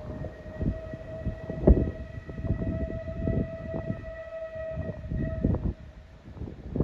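A steam locomotive's whistle sounding one long, steady note that stops about six seconds in, over low, gusty wind buffeting on the microphone.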